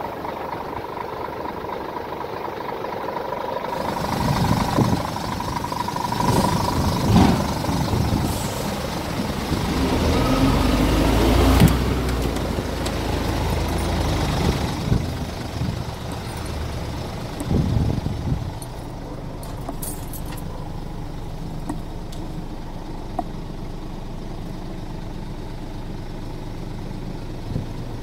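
Scania R410 truck's 13-litre six-cylinder diesel idling steadily. About four seconds in come louder handling noises and several thumps as the cab is entered. From about fifteen seconds on the idle is a quieter low hum, heard from inside the cab, with a few more knocks.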